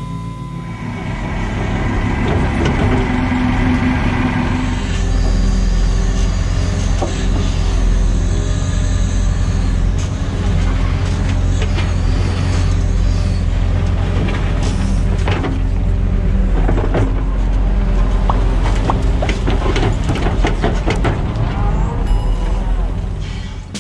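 Excavator engine running steadily, with the steel bucket scraping and knocking over stony soil, the clatter growing busier in the second half.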